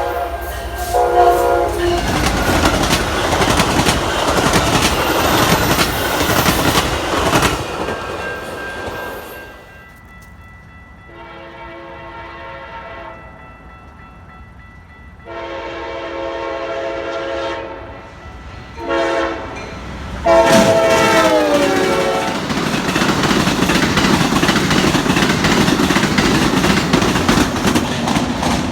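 A locomotive's Nathan K5LA five-chime horn blown in several long chord blasts, the last falling in pitch as the locomotive passes. Between and after the blasts, the rumble and wheel clatter of the train rolling by.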